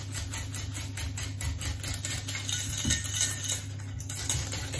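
Sugar being stirred into beaten eggs and apple compote in a stainless steel bowl with a hand whisk spoon: quick, regular scraping strokes against the metal bowl, over a steady low hum.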